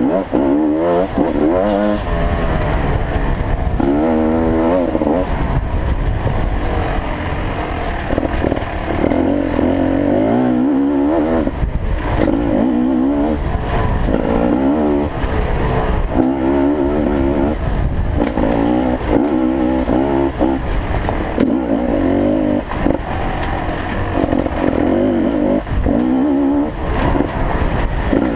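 2013 Beta 250RR two-stroke dirt bike engine being ridden hard, revving up and falling back over and over as the throttle is worked, with occasional short knocks.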